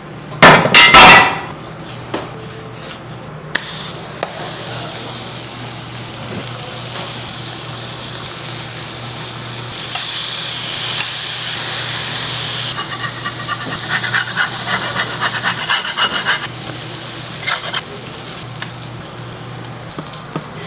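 Taco fillings sizzling on a flat-top griddle, worked with a metal spatula. A few loud knocks come just under a second in, then a steady sizzle with a low hum that grows louder for a few seconds in the middle, followed by a run of quick taps and scrapes.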